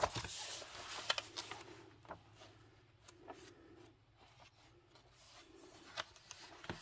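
Pages of a paperback coloring book being flipped and turned by hand: paper rustling with a sharp page snap at the start and a few softer flicks and clicks after it.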